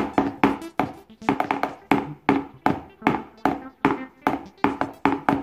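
A metal hand-mixer beater, worked by hand, knocks against the side of a bowl in quick, even strokes, about four a second, each with a short ring, as potato-pancake batter is stirred.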